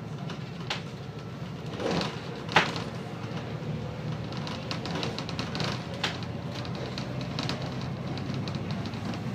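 Volvo B7TL double-decker bus's six-cylinder diesel engine running as the bus drives along, heard from inside, with the body and fittings rattling and a sharp knock about two and a half seconds in.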